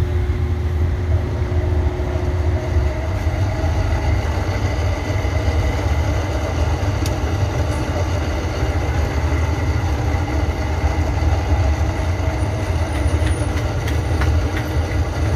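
Window-type air conditioner compressor running with a loud, steady low hum and vibration. The unit does not cool, and when the compressor hums its current climbs to about 11 amperes.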